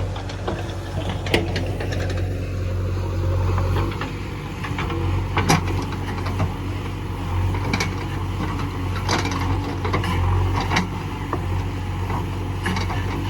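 JCB 3DX backhoe loader's diesel engine running steadily, with a whine that falls in pitch about two seconds in and scattered sharp metallic clanks from the digging arm and bucket.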